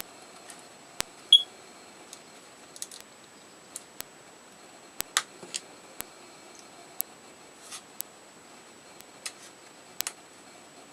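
Scattered small clicks and taps of hands and tools working on the plastic case of a Nook Simple Touch e-reader during disassembly, with one brief sharp high chirp about a second in.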